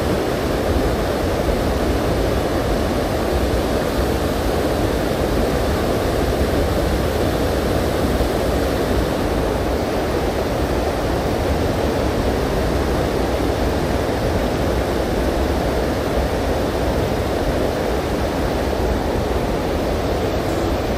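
Small rocky river rushing steadily: an even noise of flowing water with no break.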